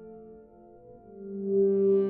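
Ambient music of long held tones. About a second in, a louder, fuller tone swells in and sustains.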